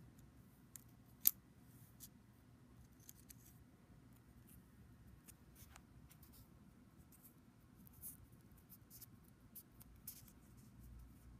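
Faint, scattered clicks and ticks of fingers and fingernails handling a peeled-off film of dried nail polish and pressing it onto a nail, with one sharper click about a second in.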